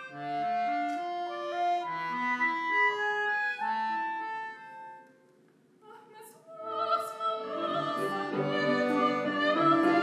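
A small chamber ensemble of clarinet and accordion playing sustained notes. The music stops for about a second midway, then resumes with a woman singing in an operatic style with vibrato over the accompaniment.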